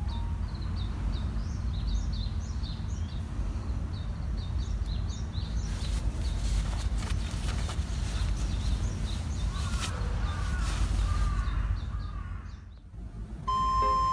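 Wild birds chirping again and again in the background over a steady low rumble, with a few brief rustles of the sleeping bag's nylon shell being handled.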